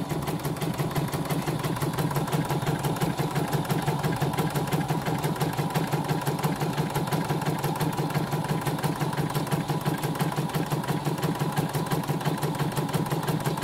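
CNY home embroidery machine stitching out a design, its needle running in a rapid, even rhythm over a steady motor hum. It is a test run after repair, and the machine is running smoothly.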